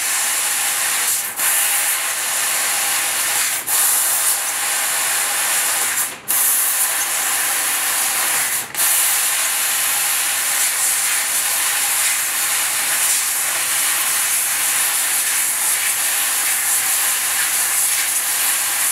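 6 kW fiber laser cutting head slicing 8 mm brass plate: a steady loud hiss of assist gas jetting through the nozzle and the cut. It breaks off briefly four times in the first half, then runs on unbroken.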